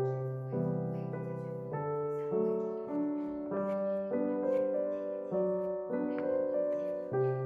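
Background piano music: a melody of notes changing about every half second over held low notes.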